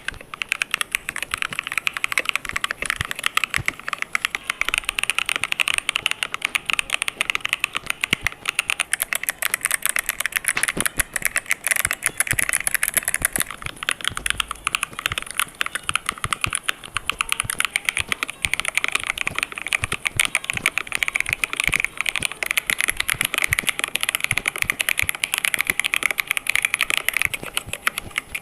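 Fast, continuous typing on a clicky mechanical computer keyboard, a dense stream of key clicks.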